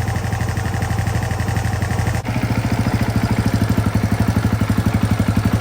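Freshly rebuilt KTM EXC single-cylinder engine running on its first start with a new carburetor, idling with an even pulsing beat. About two seconds in, its note changes abruptly and gets louder.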